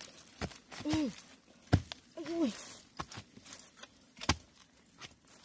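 A digging tool striking soil and bamboo roots while bamboo shoots are dug up: a series of sharp, irregular knocks, the loudest about one and a half seconds in. Two short vocal sounds that fall in pitch come in between, about a second and two seconds in.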